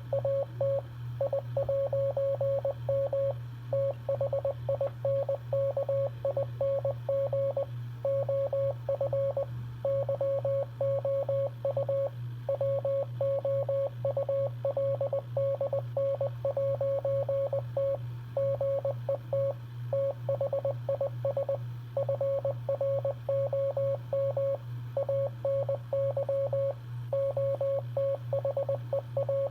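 Morse code sent as a single mid-pitched beep tone, keyed on and off in a fast, continuous run of short dots and longer dashes separated by brief gaps. A steady low hum runs underneath.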